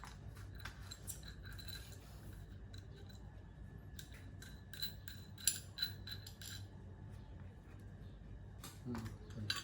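Meat slicer running with a low steady hum, with scattered light metallic clicks and clinks, several close together around the middle.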